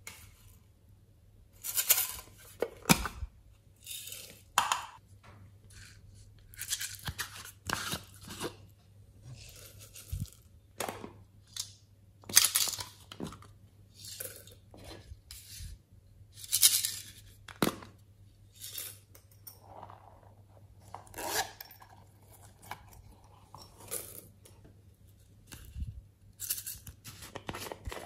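Hands handling small plastic containers and pouring dry confetti and glitter into a glass tray: irregular short rustles, crinkles and clicks, a few of them sharper and louder.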